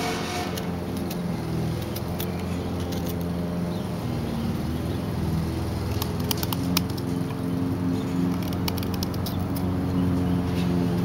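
A lawn mower engine drones steadily in the background. Sharp clicks of a carving knife shaving a wild cherry stick come in a cluster in the second half.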